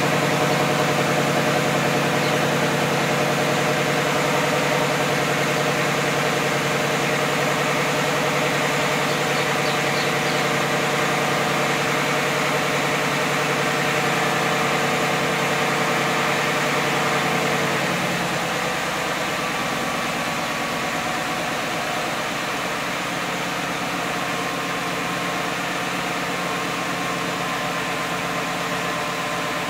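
Stock exhaust of a 2015 Ford Mustang GT's 5.0-litre V8 idling steadily while warming up after a cold start. About eighteen seconds in the idle note changes and gets a little quieter.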